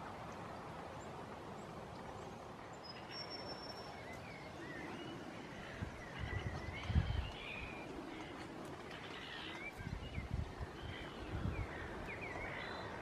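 Birds calling in short, quick chirps and twitters over a steady outdoor hiss. A few low gusts of wind buffet the microphone.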